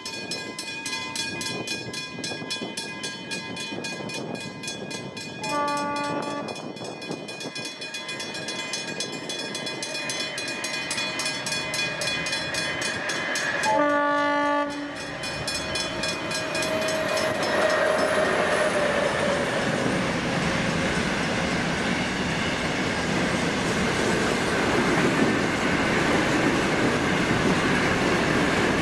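Level crossing bells ringing in a steady pulse while an approaching train sounds its horn twice, a short blast about 6 seconds in and a longer one about 14 seconds in. The train's rumble and wheel clatter then grow louder as it comes in and passes close by near the end.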